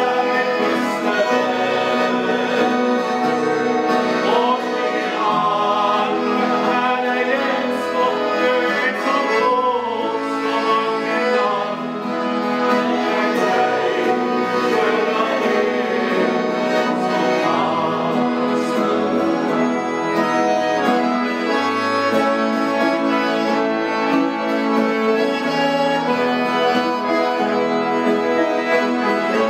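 Piano accordion playing a gospel song with acoustic guitar accompaniment, steady and continuous.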